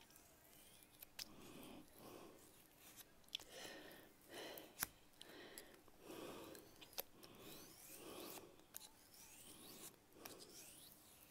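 Faint scraping of a small metal modelling spatula pressed and drawn along a strip of Styrodur foam, in short strokes about a second apart, with a few light ticks of the metal on the foam and mat.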